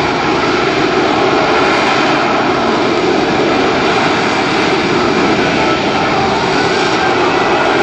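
AV-8B Harrier jump jet's Rolls-Royce Pegasus turbofan engine, loud and steady as the aircraft flies past.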